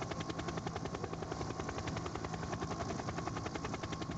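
Helicopter rotor chopping steadily with a rapid, even beat: the ambient sound of a TV camera helicopter over a bike race.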